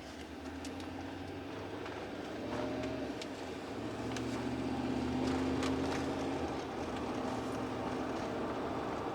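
Chevy Tahoe's 5.3 L V8 heard from inside the cabin while driving: a steady engine and road drone that grows louder for a few seconds around the middle, then holds. No lifter tick stands out; the engine sounds clean at this point.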